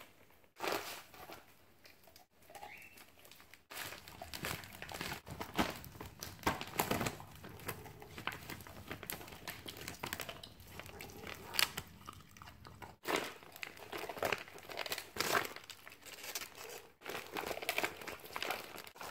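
Siberian husky chewing and crunching on a frozen raw chicken quarter, with the plastic dog-food bag under it crinkling as it shifts. Irregular crunches and crackles keep coming, broken by a few short gaps.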